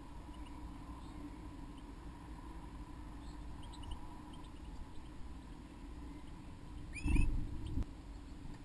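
Small birds chirping faintly over a steady low electrical hum. About seven seconds in comes a louder, brief rustle with a quick chirp as a bird moves at the box of moss.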